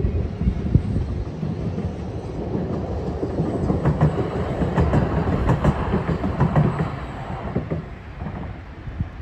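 Stadler Tango light-rail tram passing over a level crossing, its wheels clacking over the rail joints and crossing. It is loudest about four to seven seconds in, then fades as it moves away.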